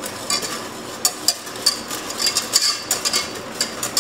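Wire whisk stirring milk in a saucepan: its wires click and scrape against the pot in quick, irregular strokes.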